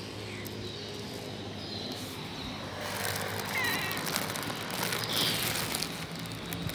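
A cat crunching dry kibble off the pavement over a steady low hum of traffic. The traffic noise swells into a louder rush about three seconds in, and a few short high chirps come through.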